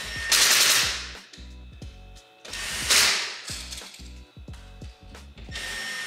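Cordless drill driving screws in two short bursts, about two seconds apart, over background music with a steady bass beat.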